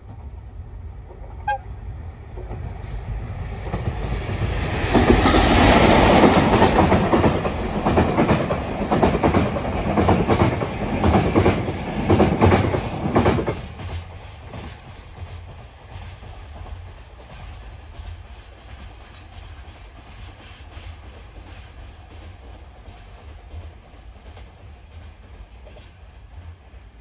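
ED76 electric locomotive gives a short whistle blast about a second and a half in, then a long freight train of container wagons passes close by. The rumble and rhythmic clickety-clack of wheels over the rail joints build, stay loud for about eight seconds, and fade as the train moves away.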